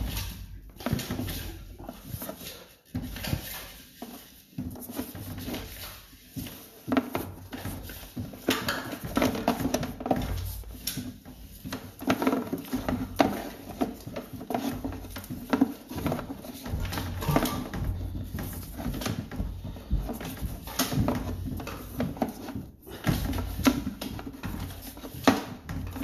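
Sewer inspection camera's push cable being fed into a drain line: irregular knocking, scraping and rattling as the cable is worked along the pipe.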